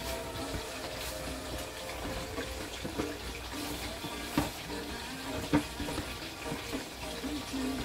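Water running or pouring in a kitchen, with a few sharp knocks of a bowl or utensil, the loudest about four and a half and five and a half seconds in.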